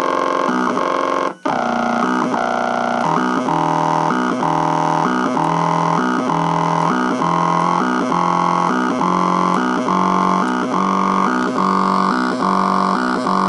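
Stepper motor of a solvent pump heard through an electric guitar pickup: a buzzy electronic drone whose pitch jumps between a few steps about twice a second in a repeating rhythm, as the motor's drive speed changes. It cuts out briefly about a second and a half in.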